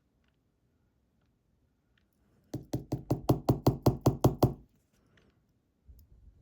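Rapid run of about eleven sharp knocks on a hard surface, about five a second for two seconds, starting a few seconds in. This is typical of a small lock being rapped to shake loose a lost pin. A few fainter knocks follow near the end.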